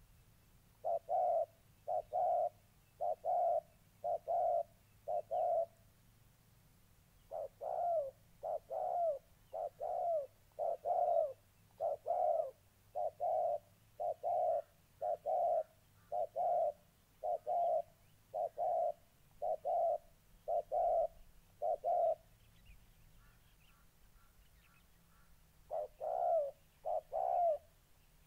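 Spotted doves cooing: a long run of short, low coos at about one a second, broken by a short pause about a quarter of the way in and a longer one near the end. It is the rapid challenge cooing of a caged decoy dove and an aggressive wild dove squaring off.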